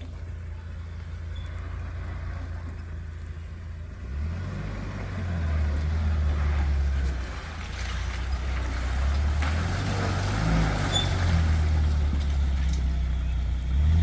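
Motorboat engine running with a low steady hum that gets louder about four seconds in, with a rushing of water or wind over it.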